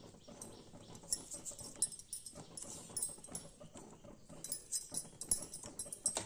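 Thick peanut-and-tamarind gravy simmering in a steel pot, with faint, irregular bubbling and popping as it comes up to the boil.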